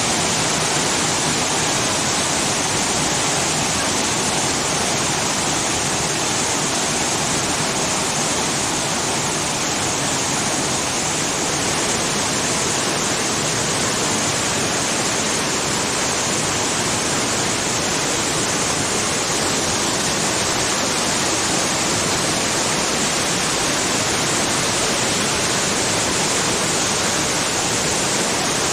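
Artificial waterfall at the Disneyland Hotel, water splashing down in a steady, even rush.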